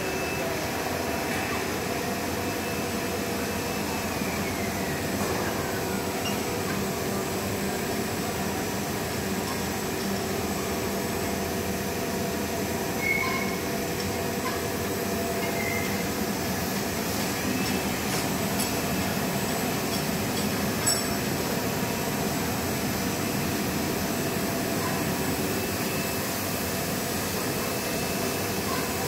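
Blown-film extrusion line for LDPE shrink film running: the steady hum and whir of its motors and air-ring blower, with several steady whining tones. One tone falls in pitch a few seconds in, and a light click comes about two-thirds of the way through.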